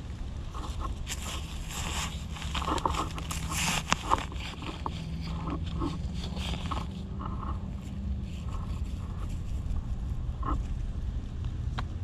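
Dry leaf litter and twigs rustling and crackling as the forest floor is disturbed, in irregular bursts that are busiest in the first half, over a steady low rumble.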